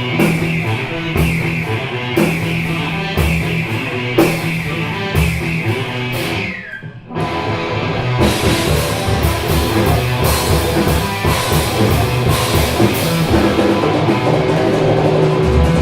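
Rock band playing live on electric guitar and drum kit with a steady beat. About seven seconds in it briefly drops out on a falling guitar note, then comes back in denser.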